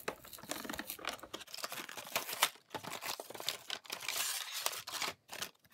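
Plastic blister packaging crinkling and cardboard backing tearing as a toy package is pulled open by hand: a busy, irregular crackle with a couple of brief pauses.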